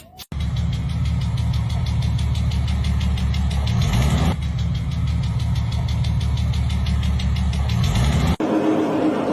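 Car engine running with a rapid, even ticking knock, the kind of annoying noise a faulty engine part makes. The pitch briefly sweeps about four seconds in, and near the end the sound cuts abruptly to a different, thinner mechanical noise.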